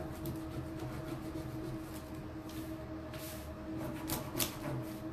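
Hands rubbing and pressing a décor transfer's clear plastic carrier sheet down onto paper: soft rustling and scuffing of the plastic film, with a few brief scratchy swipes a little past the middle.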